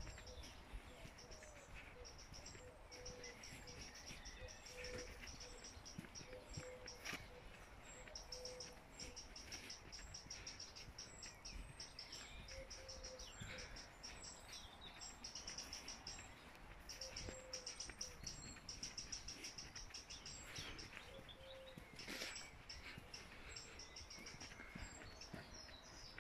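Birds singing: a high, rapid chirping trill repeated every few seconds, over a short low note that recurs about once a second. Faint throughout.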